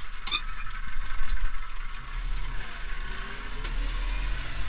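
Pronar 82SA tractor's diesel engine running steadily, heard from inside the cab while pulling a cultivator across a field: a low drone with a few brief rattles from the cab.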